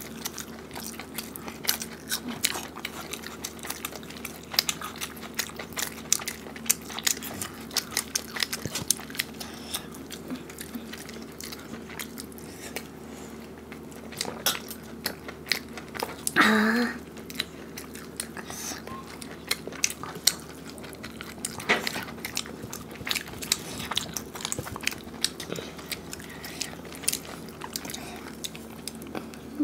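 Close-miked eating: chewing, lip smacks and wet clicks as two people eat fried rice and chicken curry with their fingers, over a steady low hum. About halfway through comes one brief, louder mouth sound.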